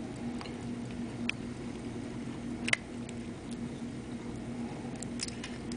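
A few small, irregular clicks and taps from handling a sterling silver pocket watch case, the sharpest one about halfway through, over a steady low hum.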